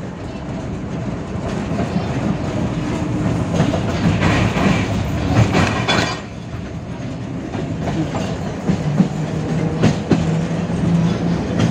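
71-605 (KTM-5) tram running along the track: the rolling rumble of steel wheels on rail, with scattered sharp clicks as the wheels pass over rail joints. A steady low hum comes in about two-thirds of the way through.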